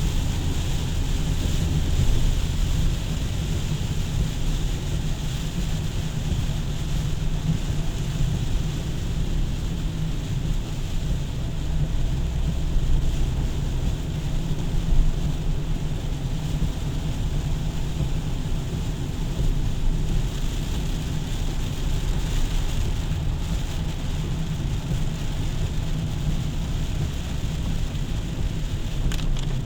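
Steady rain hiss over a continuous low rumble, with no distinct events.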